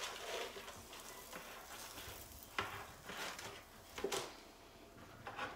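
Faint sizzling of food frying in a pan on the stove, with a couple of sharp clinks of a utensil or dish partway through.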